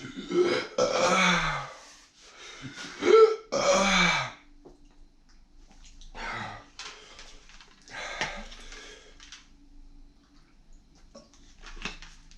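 A man's wordless throat sounds: several drawn-out groans that fall in pitch, with throat clearing, then rougher breaths and coughs near the middle. They are his reaction to the burn of Carolina Reaper–spiced ramen.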